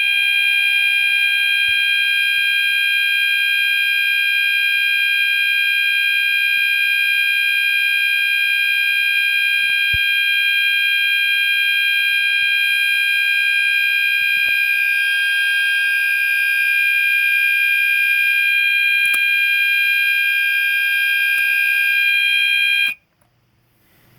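Gentex fire alarm sounders, a GOS multi-tone sounder and a Commander 4 horn, sounding together after a pull station is pulled: one loud, continuous, high-pitched tone with no break in it. It cuts off suddenly near the end.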